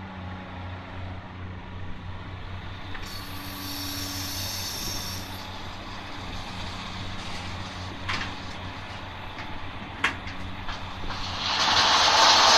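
Heavy diesel earthmoving machinery running steadily with a low hum, with a burst of hiss about three seconds in and a few sharp knocks later on. A loud rushing noise builds up near the end.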